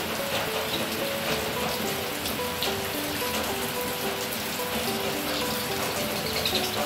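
Steady rain falling, with a light background music melody of short, even notes over it.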